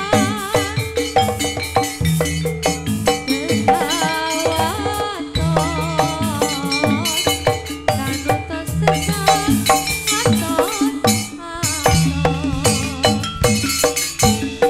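Live accompaniment music for a Javanese jathilan dance: a traditional ensemble with drums and rattling percussion playing a steady, repeating rhythm under a wavering melodic line.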